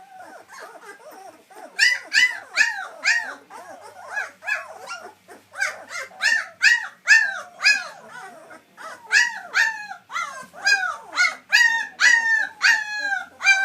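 White German Shepherd puppies whimpering and squealing: a fast run of short, high-pitched, rising-then-falling cries, several a second, growing louder about two seconds in.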